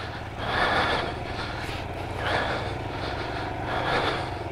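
Royal Enfield Himalayan's single-cylinder engine running at low revs on a muddy trail, with a noisy rush swelling up three times.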